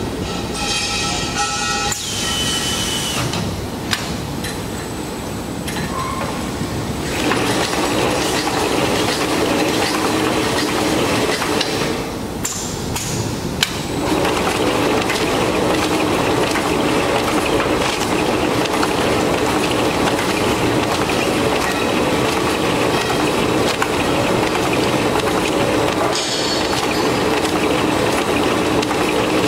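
Horizontal coil eye-through wrapping machine running, its motor-driven wrapping ring turning through the eye of a wire coil and winding wrapping film around it. A steady mechanical running noise builds up over the first several seconds, dips briefly about twelve seconds in, then runs on steadily.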